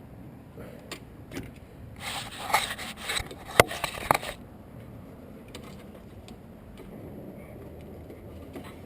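A metal part being pulled out in a car's engine bay: scraping and rattling from about two to four seconds in, ending in two sharp metallic clicks, with a few lighter knocks before it.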